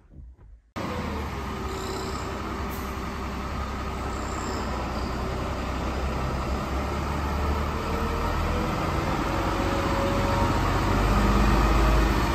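Iveco truck's diesel engine running, then pulling the truck forward past close by, its low rumble slowly growing louder and loudest near the end.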